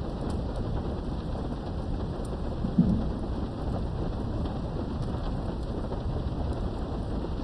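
Steady heavy rain with a continuous low rumble of thunder, heard from behind a window. Faint drop ticks sound through it, and there is one brief low thump about three seconds in.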